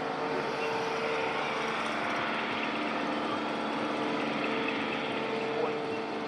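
A small engine running steadily, with a steady hum whose pitch shifts a little partway through.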